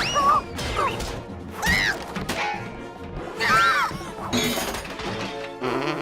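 Cartoon crashes and clattering of band instruments being knocked over and broken, mixed with sliding, falling-pitch cartoon sound effects over background music.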